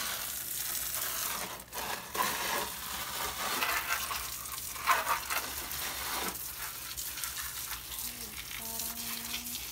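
Garden hose spray nozzle shooting a jet of water onto orchids and potted plants: a steady hiss of spray with water pattering and splashing on the leaves.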